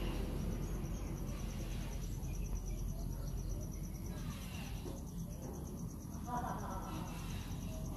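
Insects chirping in a fast, steady, high pulsing trill over a low background rumble, with a short puppy whimper about six seconds in.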